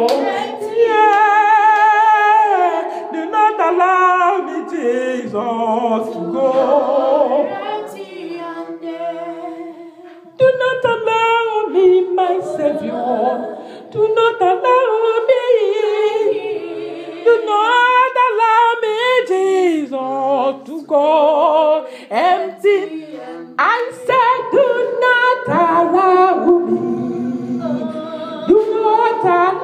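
Unaccompanied singing of a praise-and-worship song, with long, wavering held notes and brief pauses between phrases.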